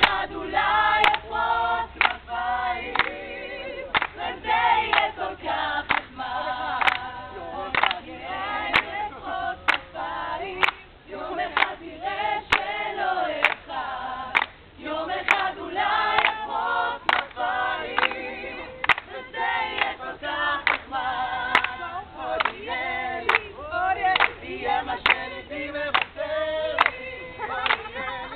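A group of voices singing together, with hand claps keeping the beat.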